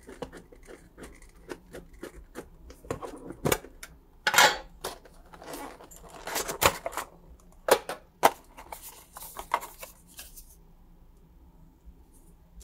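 Handling and opening a metal trading-card collector tin: irregular clicks, taps and knocks of the tin and its plastic insert, with a few short rustles and scrapes.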